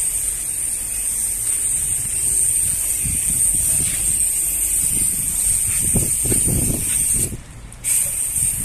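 Pressure washer jetting water against the steel tanker and its chassis: a steady high hiss that cuts out for about half a second near the end, then starts again.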